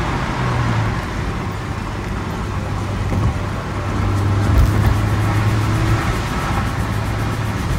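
Nissan Sentra Spec V's four-cylinder engine droning steadily at cruising speed under tyre and road noise, heard from inside the cabin.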